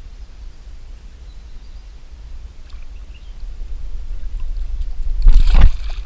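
A hooked carp thrashing at the water's surface beside the boat, with a loud splash about five seconds in, over a low steady rumble.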